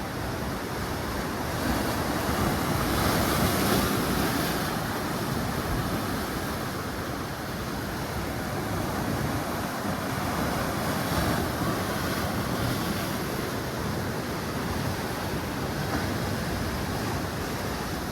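Washing machine churning water in its drum: a steady rushing, sloshing noise that swells and eases every few seconds.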